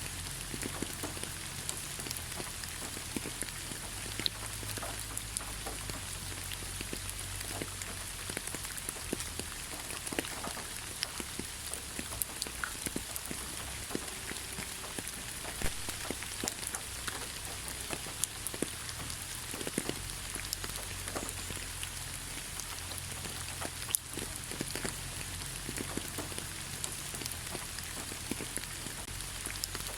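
Gentle rain falling on leaves: a steady light hiss with many scattered drops ticking and pattering.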